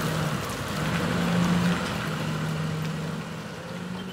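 Box truck engine running as the truck pulls away and drives off: a steady low hum that is loudest about a second and a half in, then fades as the truck moves off.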